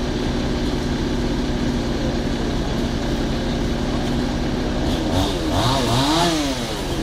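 Fire engine's motor running steadily, driving the aerial ladder, with a motor revving up and down several times near the end.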